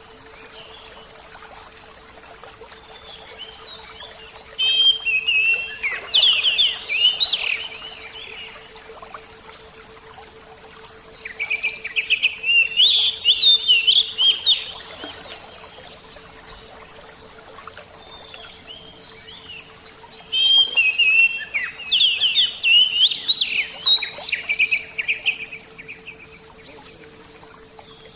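A songbird singing in three bouts of rapid, varied chirps and whistles, each a few seconds long, with pauses of several seconds between them.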